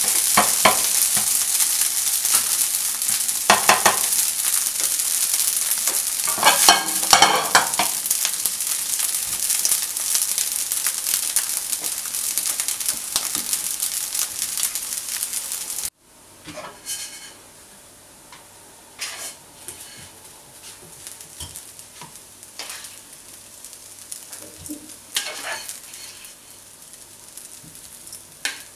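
Fried rice sizzling in a nonstick pan as a spatula stirs and tosses it, with louder stirring strokes now and then. About halfway through the sizzle cuts off suddenly, leaving only occasional scrapes and knocks of a plastic spatula against the pan and rice as the rice is scooped into a bowl near the end.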